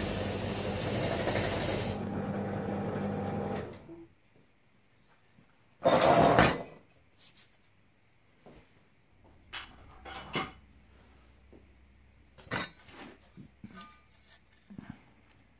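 A steady hiss with a low hum cuts off about four seconds in. About six seconds in, a welded sheet-steel test piece clatters loudly onto a steel workbench. Light clinks and taps follow as the piece is handled.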